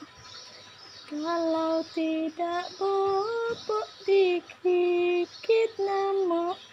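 A woman's voice singing a slow lullaby in long, held notes, starting about a second in.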